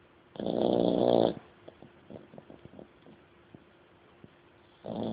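Dog snoring: a loud snore about half a second in that lasts about a second, faint clicks in the pause after it, and the next snore starting near the end.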